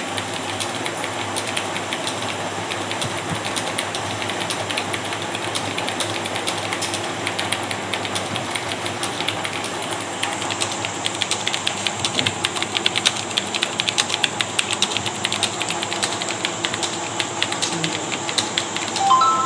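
Fast typing on a computer keyboard: a quick, irregular run of key clicks, many a second, over a steady background hum. The keystrokes grow more distinct about halfway through.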